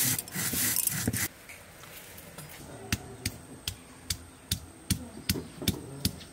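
Stone roller rubbed back and forth on a flat grinding stone, a gritty scraping that stops a little over a second in. From about three seconds in, the stone is knocked down onto the slab about two and a half times a second, crushing sliced onion.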